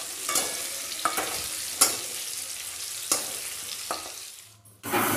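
Potato chunks sizzling in hot oil in a metal kadai, stirred with a metal spatula that clicks and scrapes against the pan about once a second. The sizzle fades and drops out briefly near the end, then returns.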